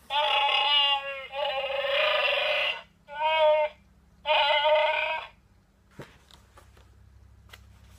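Chewbacca roars played by a greeting card's sound chip through its small speaker: four wavering calls in a row, the last ending about five seconds in. A single click follows about a second later.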